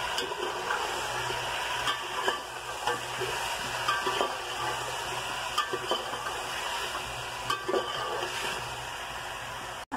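Chicken pieces and ginger-garlic paste frying in oil in a metal pot with a steady sizzle, while a metal spoon stirs them, scraping and tapping against the pot now and then.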